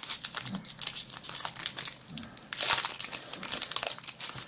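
Foil wrapper of a Yu-Gi-Oh trading card booster pack crinkling and tearing as fingers pull it open, a fast irregular crackle that is busiest a little past halfway.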